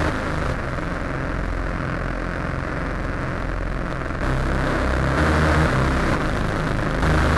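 A steady low rumble with a hiss above it, growing a little louder about four seconds in and again near the end.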